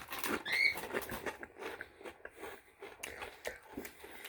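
Close crunching and chewing of a Doritos tortilla chip: a run of irregular crisp cracks, loudest in the first second, then softer chewing clicks.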